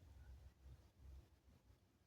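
Near silence: room tone with only a faint low rumble.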